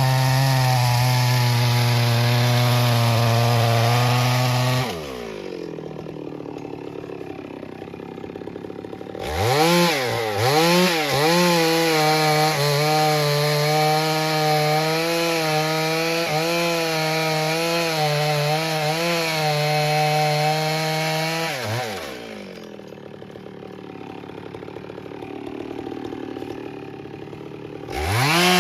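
Two-stroke chainsaw cutting a tree trunk at full throttle. It drops to idle twice, about 5 seconds in and again about 22 seconds in, revving back up with a few quick blips before the next cut.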